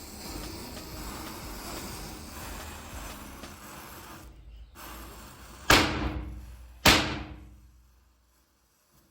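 Two firecrackers go off with loud, sharp bangs a little over a second apart, each trailing off briefly, after a few seconds of steady hissing.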